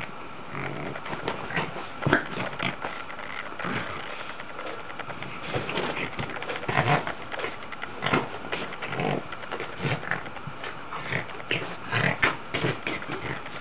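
Boston terrier playing in her dog bed: a run of irregular short grunting, snuffling and scuffling sounds, some louder than the rest.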